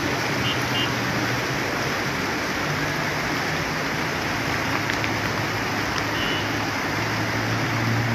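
Fast-flowing floodwater rushing across a street, a steady loud rush of water. A minibus engine hums underneath, growing louder near the end as the van drives through the flood toward the microphone.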